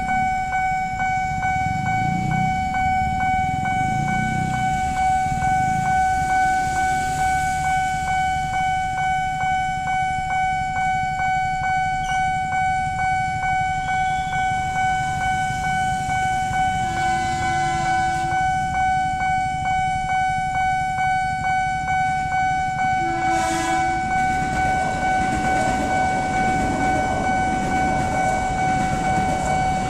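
Railway level-crossing warning bell sounding steadily with a fast, even beat over a low rumble of traffic. A train horn blows about two-thirds of the way in and again briefly a few seconds later, and a train then runs through the crossing.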